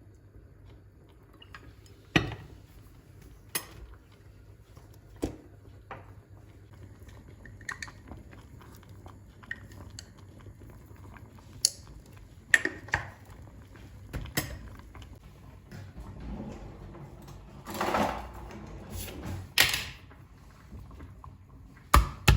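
Dishes and kitchen items being handled: scattered clinks and knocks, about a dozen sharp hits spread apart, with a longer scraping rustle about eighteen seconds in and a quick run of knocks at the very end.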